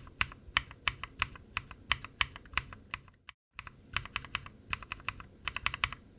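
Typing on a mechanical keyboard with NovelKeys Cream linear switches: quick, irregular key clacks. About halfway there is a short silent break between two takes, as lubed and unlubed switches are compared; in the unlubed take the spring can be heard.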